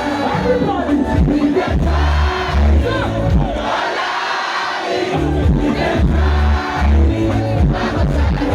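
Live concert sound: amplified band music with a heavy bass line and a crowd singing and shouting along. The bass drops out briefly about halfway through.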